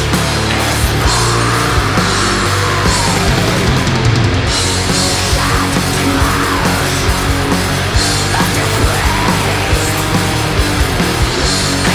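Black metal music: dense distorted guitars over a regular drum beat, loud and unbroken.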